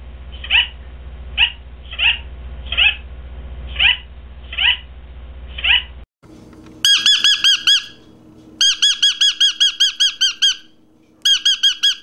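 Sun conures calling: for the first six seconds, single harsh squawks about one every three-quarters of a second, then, after a brief break, three runs of rapid shrill repeated notes at about seven a second.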